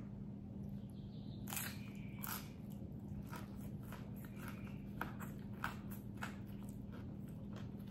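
Close-miked chewing of a crisp fried taquito: a string of irregular short crunches and mouth clicks.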